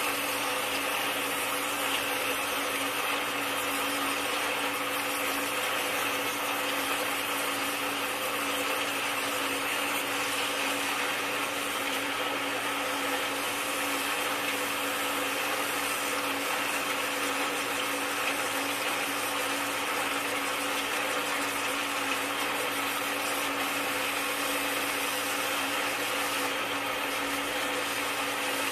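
Pressurised water jet from a handheld metal spray nozzle hissing steadily as it washes soil off a plant's roots, with a steady hum beneath it.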